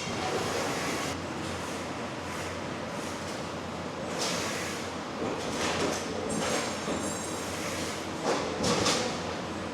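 A CNC servo-electric turret punch press with integrated shear running in automatic: a steady mechanical din with several brief hissy rushes about four, six and nine seconds in.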